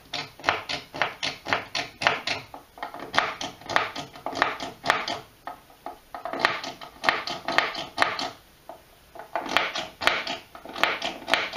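A plug being pushed in and pulled out of an amplifier's input jacks over and over: quick scraping clicks, about three a second, in several runs with short pauses between them. It is working freshly sprayed contact cleaner into jacks that had been cutting the signal in and out.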